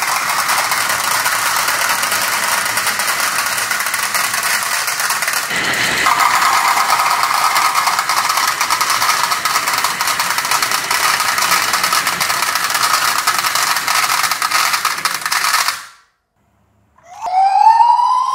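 Glass marbles rolling down a wooden marble-run slope and dropping into a toy garbage truck's plastic bin, a dense continuous clatter of small clicks. It cuts off about 16 seconds in, and a second later the toy truck's electronic siren starts, a wailing tone rising and then falling.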